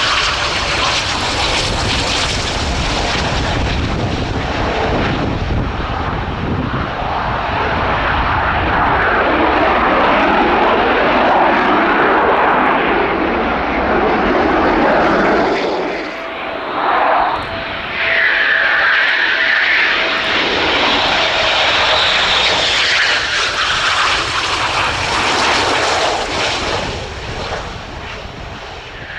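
Eurofighter Typhoon's twin EJ200 jet engines at takeoff power, a loud continuous jet roar as it lifts off and climbs away. About halfway through, the roar of a second Eurofighter builds as it starts its takeoff run.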